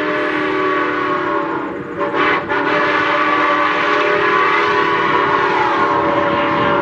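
Steam locomotive whistle blowing one long, steady chord, with a brief dip about two seconds in.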